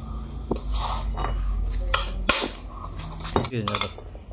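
Metal clinks and taps of a T-handle socket wrench spinning off the nuts that hold a Honda Dio scooter's steel wheel rim to its brake hub. The clinks are scattered, with a quick run of them a little past the three-second mark.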